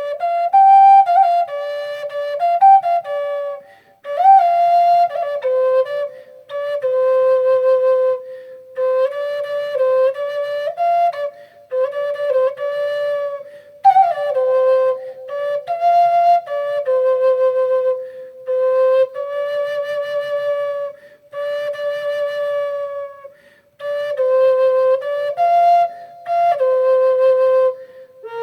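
Flute playing a slow, simple melody, one note at a time in phrases of a few seconds with short breaths between them.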